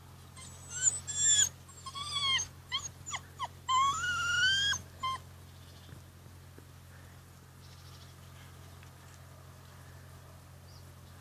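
Rhodesian Ridgeback puppy whining: a string of short high-pitched whines that bend up and down, ending a little over four seconds in with a longer rising whine.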